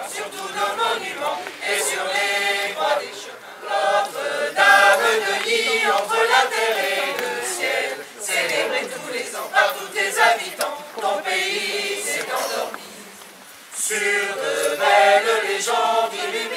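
A choir singing a Christmas song, with a short pause between phrases near the end.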